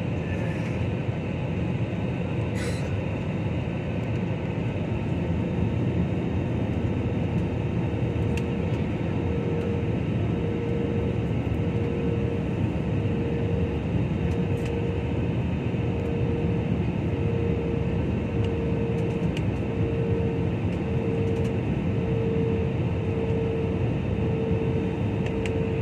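Steady roar of a jet airliner in flight as heard inside the cabin: engine and airflow noise. A humming tone throbs about once a second from about nine seconds in.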